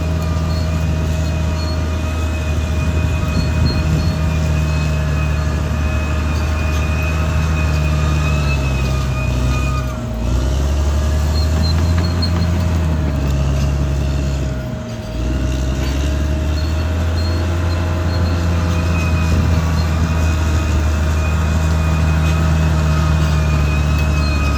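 Caterpillar D6R XL bulldozer's diesel engine running steadily under work, with a high steady whine above the low engine note. The engine pitch shifts a few times, and the sound dips briefly twice, about ten and fifteen seconds in.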